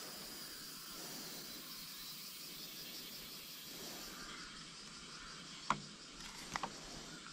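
Quiet outdoor ambience: a faint, steady high hiss. A sharp tap comes a little over halfway, and two or three more close together about a second later.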